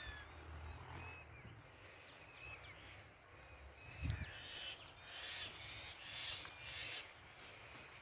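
Birds calling outdoors: short chirping calls throughout, and about four harsh, rasping calls in quick succession in the second half. A single dull thump comes about halfway through.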